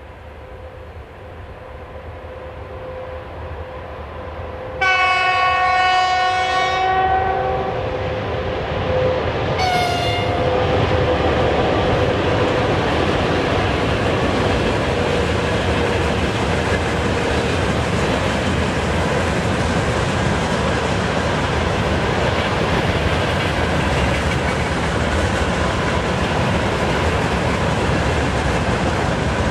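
A VL80S electric locomotive hauling a freight train approaches, growing louder. About five seconds in it sounds its horn in one long blast, then a short blast a few seconds later. The freight wagons then roll past steadily at a constant loud level.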